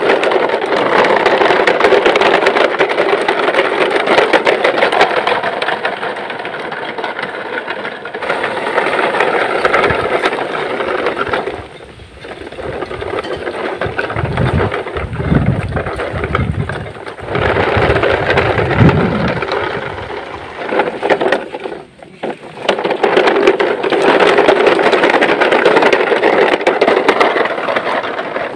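Plastic toy trucks rattling and clattering as their hard wheels roll over a dirt and stone path. The noise dips briefly twice, with some low rumbling in between.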